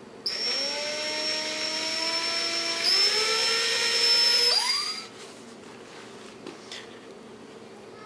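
DeWalt 18-volt cordless drill running for about four and a half seconds, drilling a hole in a magnetic tool holder. The motor whine climbs in pitch, steps up about three seconds in, then winds down with a falling pitch.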